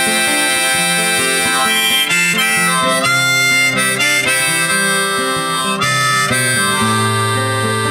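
Music: an instrumental passage of a song, with harmonica playing sustained melody notes over guitar accompaniment.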